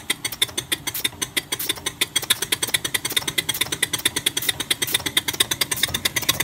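1/8-scale Allen American model locomotive running on compressed air in reverse gear: its cylinders chuff out air in a fast, even rhythm of sharp puffs as the wheels spin free.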